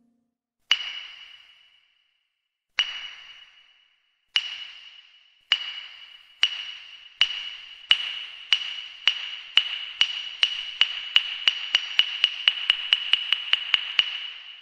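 A high, ringing ping struck over and over on the same note, the strikes coming about two seconds apart at first and speeding up to several a second before stopping near the end.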